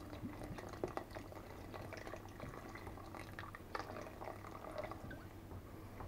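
Thick chilli sauce simmering in a pot, faint and irregular bubbling pops and drips, as vinegar is poured in from a bottle and stirred in with a spoon.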